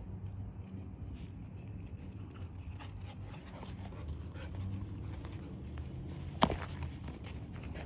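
Footsteps crunching on dry, loose dirt, a run of soft scuffs and clicks, with one sharp knock about six and a half seconds in.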